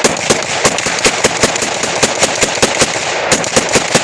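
Rapid, sustained gunfire: an unbroken string of sharp shots, about five or six a second, over a steady crackle.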